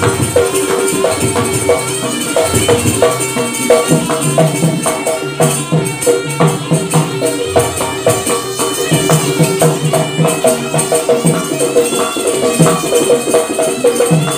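Jaranan gamelan music accompanying the dance: a loud, driving beat of drums and struck percussion over steady pitched instrument lines.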